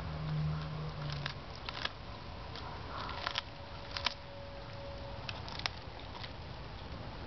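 Labrador biting and tearing at broccoli leaves and stalks: a series of sharp snaps and crunches, about six, scattered over a steady background hiss. A low hum sounds for the first second or so.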